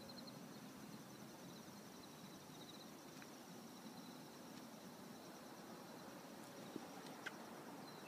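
Faint outdoor ambience of insects trilling steadily in a high, finely pulsing note, with a couple of small clicks near the end.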